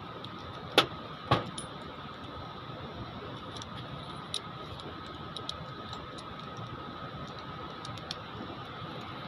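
Small handling noises from aircon wiring being worked by hand: two sharp clicks about a second in, then scattered light ticks and rattles, over a steady background hiss with a faint high whine.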